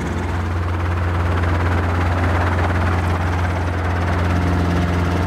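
Robinson R22 helicopter's engine and rotor running in flight, heard from inside the cockpit: a loud steady low drone with rushing air noise.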